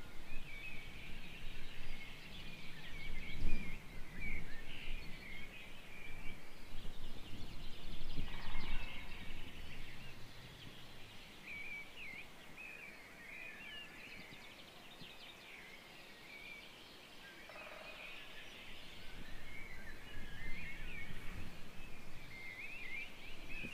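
Mixed forest birdsong: several birds chirping and trilling at once. Gusts of wind rumble on the microphone during the first half.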